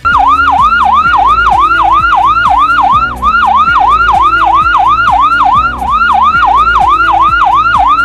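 Ambulance siren sounding a fast, repeating up-and-down sweep, about three cycles a second. It is the pattern that signals an ambulance carrying a patient in a critical emergency.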